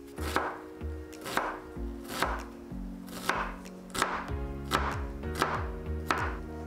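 Knife chopping onion on a wooden cutting board: about nine separate sharp chops, spaced roughly two thirds of a second apart.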